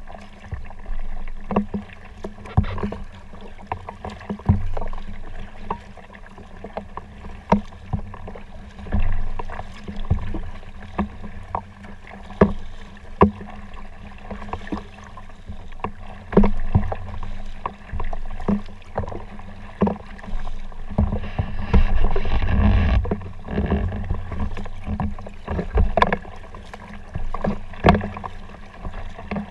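Kayak being paddled: irregular sharp knocks and splashes every second or two from the paddle strokes, over a steady low rumble of water, with a louder rumbling stretch about two-thirds through.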